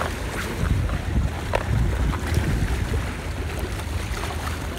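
Wind buffeting the microphone at the seaside, a steady low rumble, with a few faint sharp clicks scattered through it.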